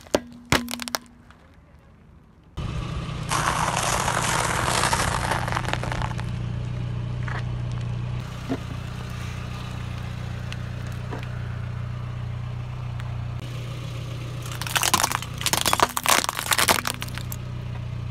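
A car tyre rolling over objects on asphalt. A few sharp cracks at the start as walnut shells in a cardboard egg tray break, then a steady low car-engine hum with a gritty rolling hiss. Near the end comes a rapid run of cracks and snaps as something under the tyre breaks.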